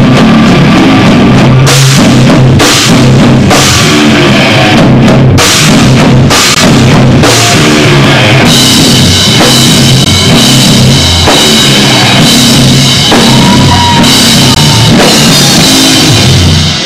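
A live rock band playing loud, with a drum kit's bass drum and cymbals, bass and electric guitar through the PA, heard at close range from the audience.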